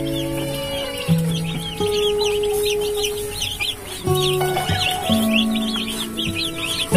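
A brood of young broiler chicks peeping continuously, many short high falling cheeps overlapping, over background music with long held notes.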